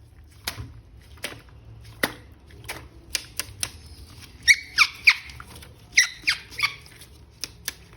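A wet plastic toy figure being handled and rubbed: a string of sharp clicks and knocks, and in the middle several short, loud squeaks that fall in pitch.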